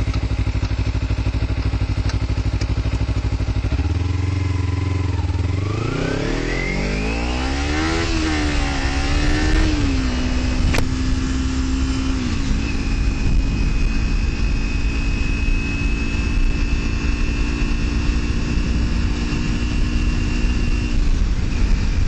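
Kawasaki Ninja 300 parallel-twin engine idling, then pulling away: its pitch climbs steeply from about four seconds in, wavers, and settles. Near the middle it steps down and holds a steady note while cruising.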